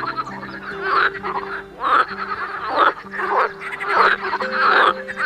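Frog croaking over and over, a rasping call roughly once a second, over soft background music with held notes.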